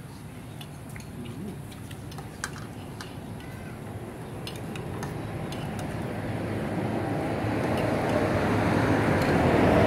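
A motor vehicle approaching, its engine and road noise growing steadily louder through the second half. Light clinks of utensils on plates can be heard in the first few seconds.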